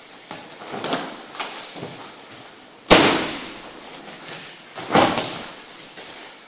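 Aikido breakfalls: bodies thrown onto foam tatami mats, with a loud slap about three seconds in and another about five seconds in, and lighter thuds before them.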